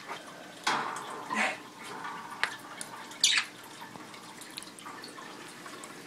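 Scattered light clicks, knocks and rustles as budgies are handled and moved into a wire cage, with one brief falling high squeak a little after three seconds.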